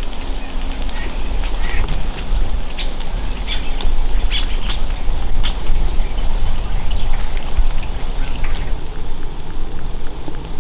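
Birds calling in many short, high chirps, several sliding downward, that stop about eight and a half seconds in, over a steady low rumble.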